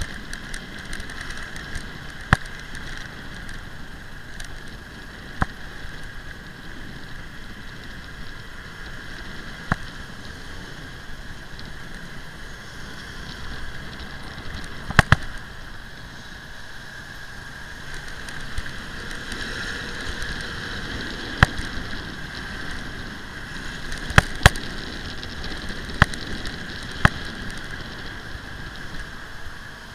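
A motorbike running at low speed over brick paving, a steady engine and road noise with a constant whine-like hum, broken by sharp clicks and knocks every few seconds, a couple of them paired close together.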